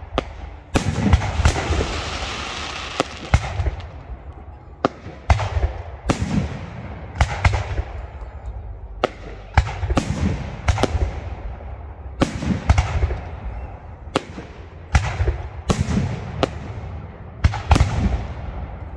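Aerial firework shells bursting in quick succession: sharp bangs about once a second, each trailing off in a rolling echo. A dense hiss fills the air for a few seconds near the start.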